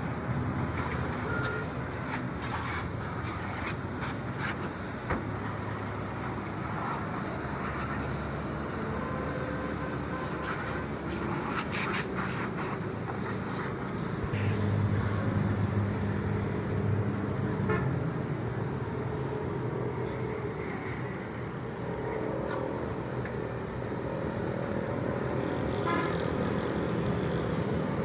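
Road traffic and vehicle engines running steadily, with a heavier engine rumble for several seconds in the middle.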